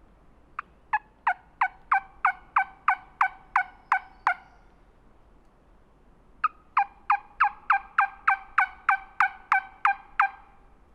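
Turkey yelping from a hunter's turkey call, used to strike a gobbler. It comes in two runs of about a dozen loud yelps each, roughly three a second, with a short pause between, and each note breaks sharply from high to low.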